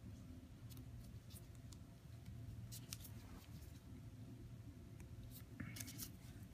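Disposable adhesive EKG tab electrodes being peeled off skin by gloved hands: faint, scattered short crackles, with a small cluster near the end, over a low steady hum.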